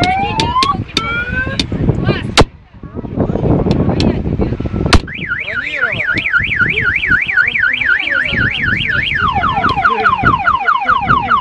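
A Volkswagen Touareg's car alarm sounding. It cycles from rising whoops to a fast warbling siren about halfway through, then to rapid falling chirps. Hard hammer blows strike the side window glass, which holds; the loudest blows come at about two and a half and five seconds in.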